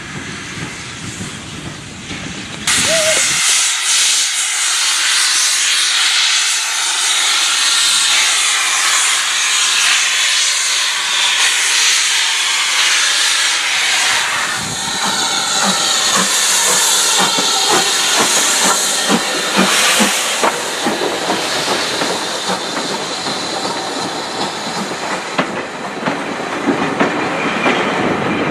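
A steam locomotive's steam hisses loudly, starting suddenly about three seconds in, as the engine pulls out of a station. From about halfway, its carriages roll past with the wheels clicking and clattering over the rail joints, while the hiss goes on more quietly.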